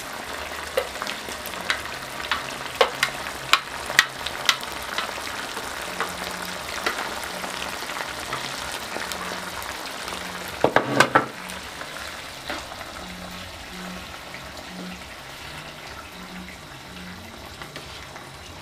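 Tomato sauce sizzling in a non-stick frying pan on a gas burner, with a plastic spoon knocking and scraping on the pan as chopped carrots and coriander are tipped in and stirred. Several sharp taps come in the first few seconds, and a quick cluster of knocks about eleven seconds in.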